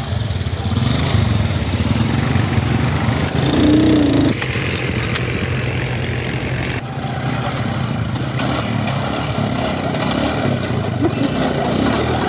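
Small motorcycle engine running steadily as the bike rides along railway track, its sound changing abruptly about four and seven seconds in.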